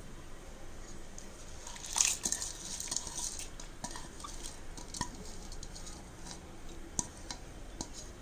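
Soaked basmati rice tipped into a pot of boiling water, with one loud splash-and-clatter about two seconds in, then scattered small clinks and taps of the vessel and utensils against the pot.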